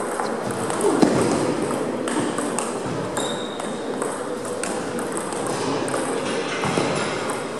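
Table tennis ball clicks: celluloid-type balls striking bats and tables, an irregular patter of sharp ticks from the rally at hand and neighbouring tables, with a louder hit about a second in.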